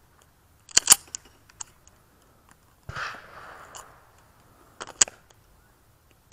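Sharp metallic clicks of a semi-automatic pistol being handled close by, typical of loading and making ready: a cluster about a second in and another near five seconds, with a brief scuffing rustle in between.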